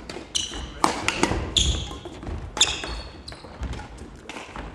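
Badminton rally on an indoor court: sports shoes squeak sharply and repeatedly on the hall floor, over thudding footfalls and several sharp hits.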